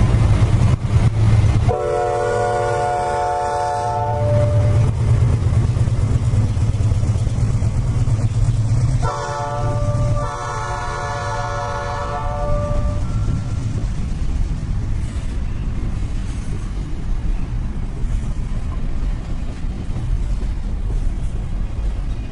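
Diesel locomotive sounding its multi-chime air horn, a chord of several notes: one long blast about two seconds in, then a short blast followed by a longer one around ten seconds in. Under the horn the locomotive's diesel engine runs steadily, and it carries on alone after the horn stops.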